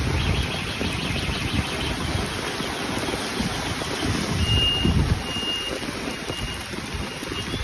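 Heavy rain hissing steadily, with wind rumbling on the microphone, as vehicles move through knee-deep floodwater. In the second half a high electronic warning beep sounds four times, like a vehicle's reversing alarm.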